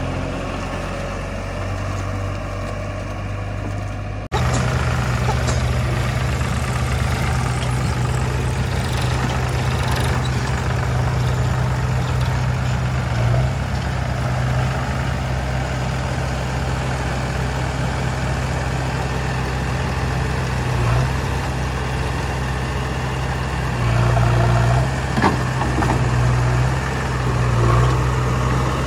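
Diesel engines of a JCB 3DX backhoe loader and a Sonalika tractor running, a steady low hum. The sound jumps louder about four seconds in, and the engine note rises briefly several times as the machines work.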